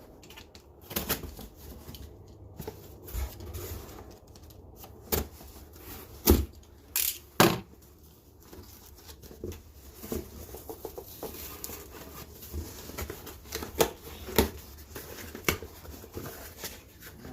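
A small cardboard box being opened and its packaging handled: tearing and crinkling with scattered clicks and knocks. The loudest are a few sharp noises about six to seven and a half seconds in.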